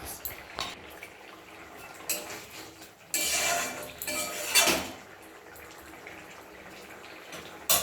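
Metal cooking utensil knocking and scraping against a pan while handling fish in gravy: a few light clinks, a louder scraping stretch about three seconds in, and a sharp clink near the end.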